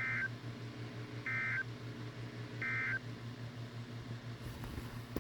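EAS end-of-message code sent over NOAA Weather Radio: three short, identical bursts of high-pitched warbling digital data tones, each about a third of a second long and about 1.3 s apart. Under them runs a steady low buzzing hum.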